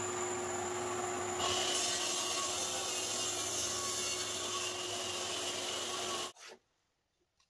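DeWalt mitre saw running with a steady motor whine; about a second and a half in its blade bites into a thick ash board and the sound grows louder and brighter as it cross-cuts the board's end off. The sound cuts off suddenly about six seconds in.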